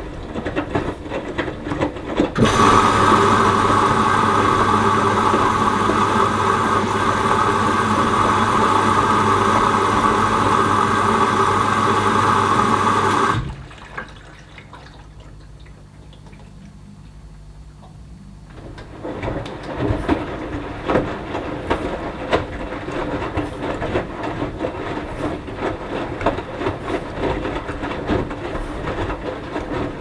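Hoover Dynamic Next front-loading washing machine mid-wash: the drum tumbling the wet load with sloshing and clatter, then water rushing in through the inlet valve as a loud steady hiss with a hum for about eleven seconds. The water cuts off suddenly, and the drum rests for a few seconds with only a low hum before tumbling and sloshing again.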